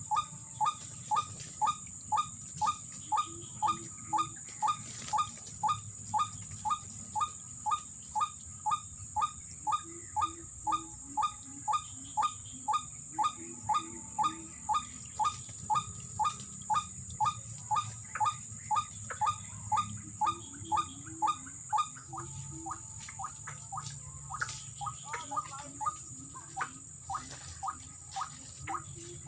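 White-breasted waterhen (ruak-ruak) calling, one short hooked note about twice a second in a long, even series that turns ragged near the end, over a steady high insect drone.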